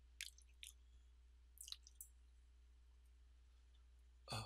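Near silence: room tone with a steady low electrical hum, a few faint clicks in the first two seconds, and one short, louder sound just before the end.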